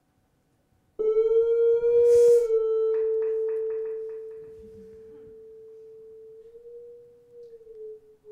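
Synthesised tone from a sonified line chart, made with the Web Audio API, whose pitch follows the plotted data values. It starts suddenly about a second in, rich in overtones, with a brief hiss at about two seconds. It then thins to a plainer, quieter tone, rises slightly, and near the end begins to fall in pitch as the chart line drops.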